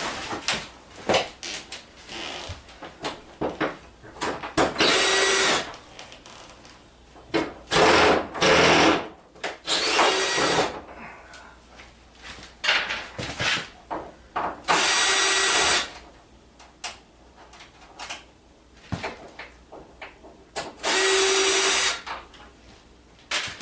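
Power drill-driver backing screws out of a large flat-screen TV's back panel, in several short runs of about a second each, with clicks and knocks of handling the panel and screws between runs.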